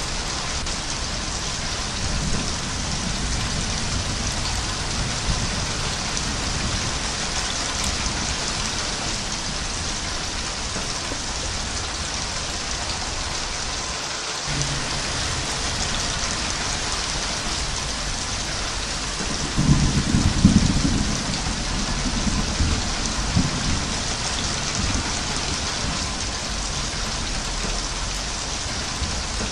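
Steady heavy rain hissing, with thunder rumbling low a few times; the loudest roll of thunder comes about two-thirds of the way through, followed by a weaker one.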